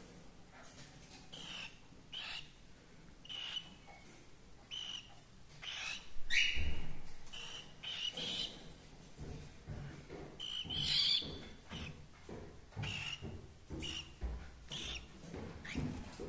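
Cockatiels giving short chirps about once every second or so while being petted, with a louder, rougher call about two-thirds of the way through and a couple of low bumps.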